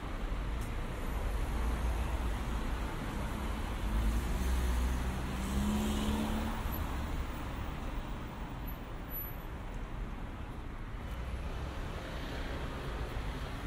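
City street traffic: cars running along a boulevard over a steady low rumble, with one vehicle passing closer and louder about midway.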